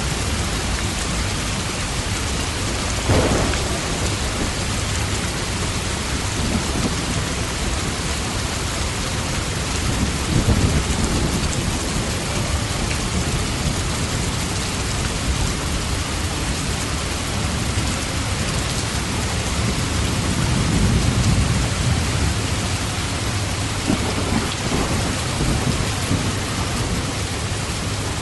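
Steady heavy rain, with a low rumble of thunder swelling and fading several times: a sharper crack about three seconds in and longer rolls around ten seconds and twenty seconds in.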